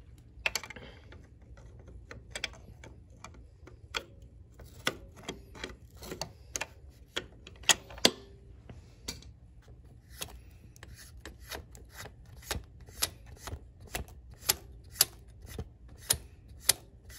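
Sharp metal clicks of an oil filter wrench working the notched spring-preload collar on a dirt bike's rear shock, turning it along the threaded shock body a notch at a time. The clicks come irregularly at first, then settle into an even run of about two a second.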